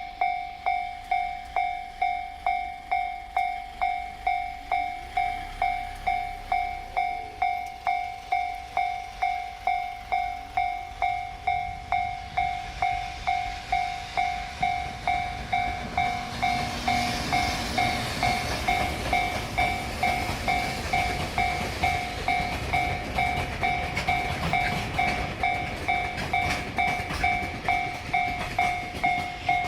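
A Japanese railway level-crossing alarm rings its pulsing two-tone electronic 'kan-kan', about one and a half strokes a second. About halfway through, a JR Freight EF210 electric locomotive hauling a short five-wagon container train comes up and passes, its wheels clattering loudly over the rail joints.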